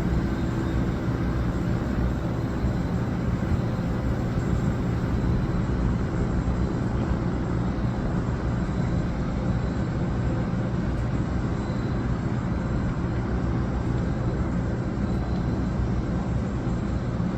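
Steady airport ramp machinery noise around a cargo airliner being loaded: a constant low hum under an even rush.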